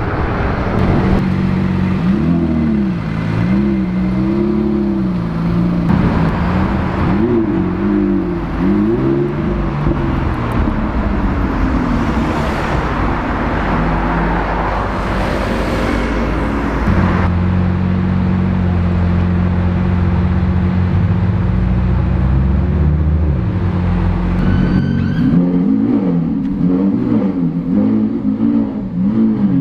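Supercar engines being revved on a street, the pitch swinging up and down in repeated blips. It starts with a Ferrari, gives way to a loud rushing roar as a car drives through, then a steady low rumble. Near the end comes renewed revving from a Lamborghini Aventador SVJ's V12.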